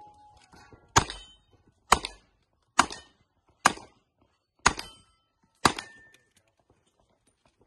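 An open-division competition revolver fired six times at steel targets, about one shot a second. Several shots are followed by a brief metallic ring from the struck steel plate.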